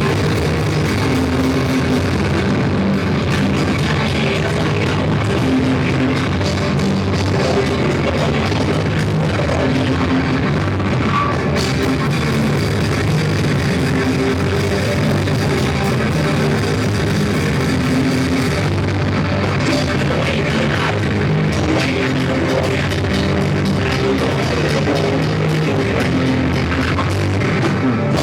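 Live rock band playing loud distorted guitars and a drum kit, recorded with poor, crowded sound.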